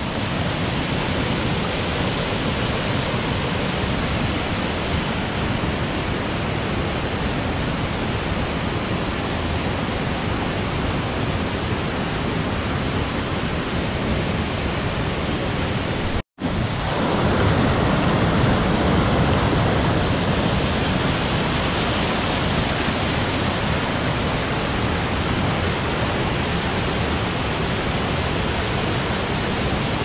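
Steady rushing of white water from a jungle waterfall and its rocky rapids. The sound cuts out for a split second about sixteen seconds in, then carries on a little louder.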